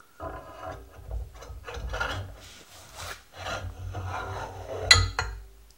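A metal gear being slid along a metal shaft: irregular scraping and rubbing of metal on metal with light knocks, and a sharp clank about five seconds in.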